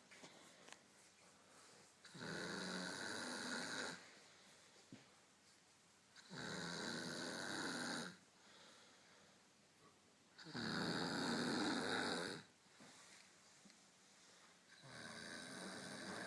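A drunk young woman snoring in her sleep: four long snores, each about two seconds, spaced about four seconds apart.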